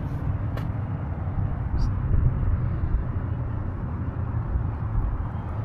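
Steady low rumble of distant city traffic, with two faint clicks about half a second and two seconds in.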